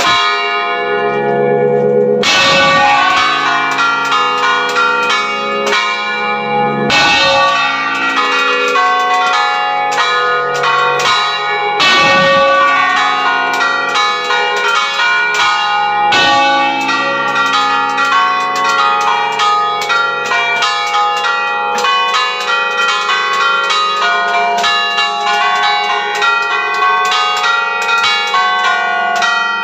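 Several wheel-mounted church bells of San Rufino ringing together in a continuous peal, strokes overlapping and ringing on, heard from right beside them in the belfry. Heavier, deeper strokes come about every five seconds during the first half.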